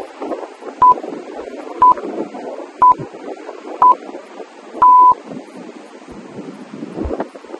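Workout interval-timer countdown: four short beeps at the same pitch, one a second, then a longer final beep that marks the start of the next exercise interval.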